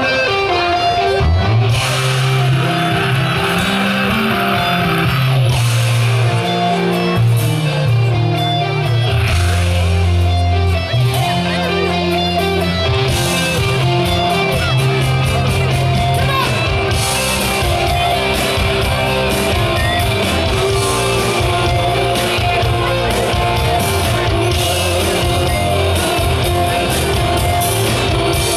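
Live party band playing an instrumental stretch: guitar over a moving bass line and a steady drum beat.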